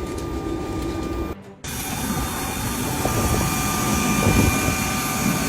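Steady engine noise with a thin high whine. It drops out briefly at a cut about a second and a half in, then comes back fuller and grows slowly louder.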